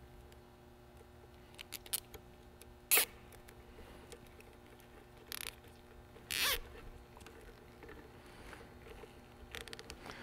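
Nylon zip ties being pulled tight around a bundle of coiled power cable, with small clicks and cable rustling. There are short zipping rasps about three seconds in, and again twice between five and seven seconds in.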